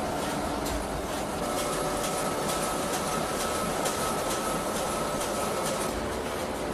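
Tea-factory processing machinery and leaf conveyors running: a steady mechanical rumble and clatter, with a thin steady whine that stops near the end.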